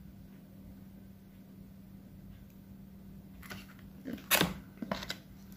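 A short run of crinkles and light knocks from a paperboard takeout box being handled as a piece of fried chicken is picked out of it. The sharpest knock comes about four seconds in, over a faint steady hum.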